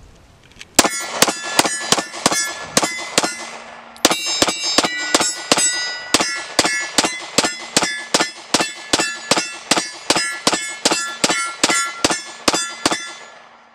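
Faxon FX-19 Patriot 9mm pistol fired in rapid strings at steel targets, each shot followed by the ringing clang of a steel plate hit. About seven shots come first, then after a short pause a long steady string of about twenty more, at roughly two to three shots a second.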